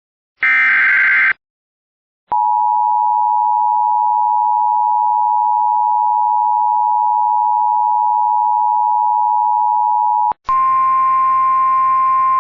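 The last burst of an Emergency Alert System SAME header, a short buzzy data chirp, then the NOAA Weather Radio 1050 Hz warning alarm tone: one steady, loud, pure tone held about eight seconds that cuts off abruptly. Near the end, hissing, humming weather-radio broadcast audio follows as the voice message is about to start.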